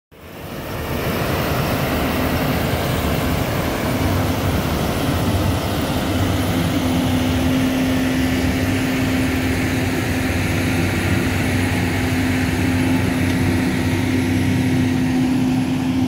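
Tractor and combine harvester engines running steadily as the machines work the harvested corn, a loud continuous drone with a constant hum. The sound fades in over the first second.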